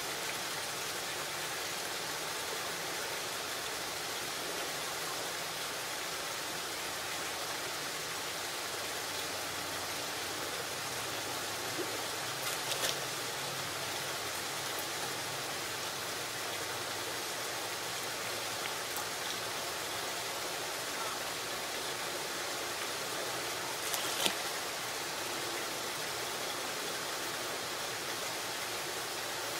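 Steady, even rushing of water, with a faint steady hum under it and two brief clicks, one about halfway through and one later.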